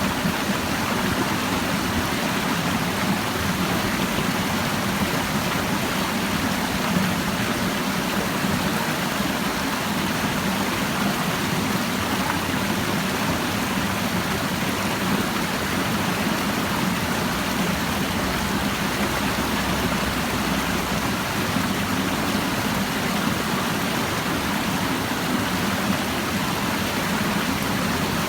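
Clear stream babbling steadily, an even rushing of flowing water with no breaks.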